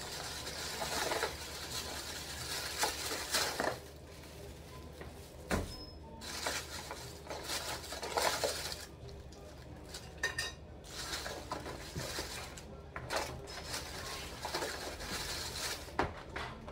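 Plastic takeout bags rustling and crinkling in irregular bursts as cardboard food boxes are pulled out and handled.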